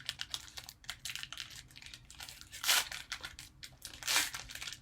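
A Disney Lorcana booster pack's plastic wrapper crinkling and tearing as it is pulled open by hand, in irregular crackles with louder rips a little under three seconds in and again about four seconds in.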